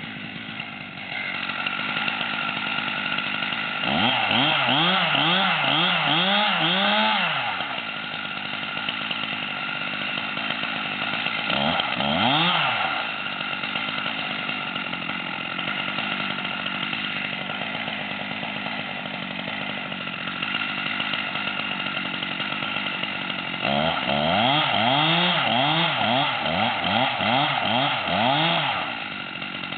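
Chainsaw running steadily. Its engine pitch swoops rapidly up and down in three spells: about four seconds in, briefly near the middle, and again for several seconds near the end.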